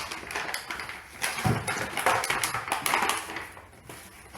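Hands opening a container of painting supplies: a run of crackling and clicking handling noise, with a dull knock about a second and a half in.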